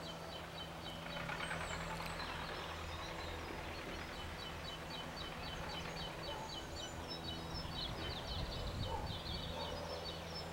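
Outdoor ambience: a bird singing a long run of short, high chirps, several a second, over a low, steady drone.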